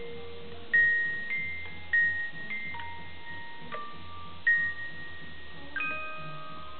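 Music-box movement inside a vintage world-globe cigarette holder, its comb plucked to play a slow, tinkling tune of single bell-like notes that ring and fade. The tune plays as the globe turns.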